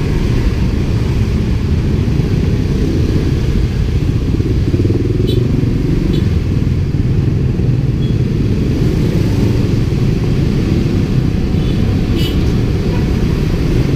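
Steady low rumble of motor scooter traffic: the rider's own small scooter and the motorbikes around it running at low speed. A few brief high-pitched chirps stand out about five, six and twelve seconds in.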